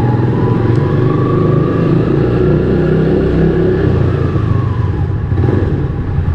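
Rusi Classic 250 motorcycle engine running as the bike rides along at low speed, a steady low rumble.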